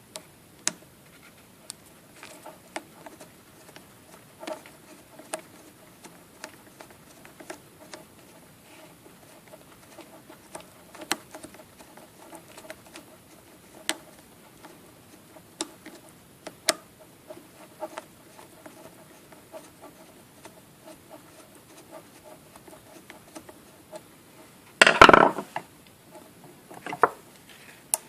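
Small metallic clicks and scrapes of a screwdriver turning a bolt through a thin bent sheet-metal clamp, spaced irregularly about a second apart, with a louder metal clatter near the end. The bolt is stripping its threads in the thin metal.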